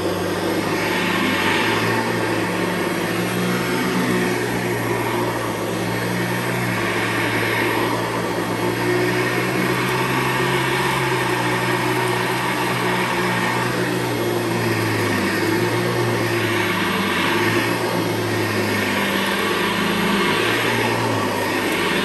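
Hoover Convertible U4401 upright vacuum, fitted with a 12-blade metal fan and a metal beater bar brushroll, running steadily on carpet. Its motor hum shifts slightly in pitch, and a rush of air and brush noise swells and fades every few seconds as it is pushed back and forth.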